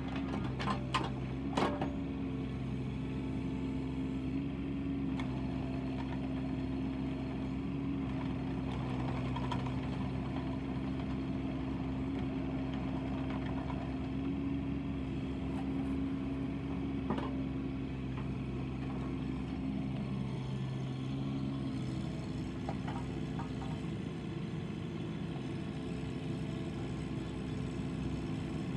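Bobcat 324 mini excavator's diesel engine running steadily while the boom and bucket are worked. A few sharp metal clanks come about a second or two in, and one more about halfway through.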